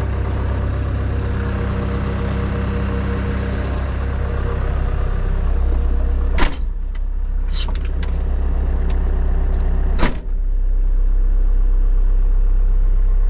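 Caterpillar C3.4 turbo diesel engine of a tracked skid steer running steadily. Two sharp knocks come about six and a half and ten seconds in, and after the second the sound turns duller, leaving a low, even hum.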